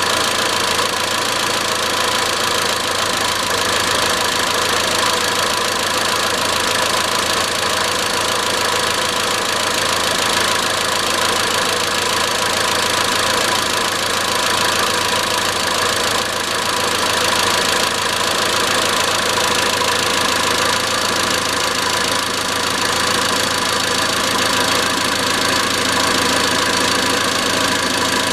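Iran Khodro Samand's 1.6-litre 16-valve TU5JP4 four-cylinder petrol engine running steadily at idle with a metallic knock, the engine noise whose cause is being sought.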